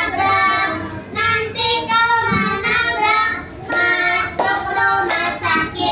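A group of young children singing a song in Indonesian together, clapping their hands along with it.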